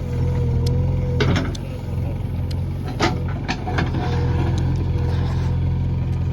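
Backhoe loader's diesel engine running steadily, with a few sharp knocks about a second and three seconds in.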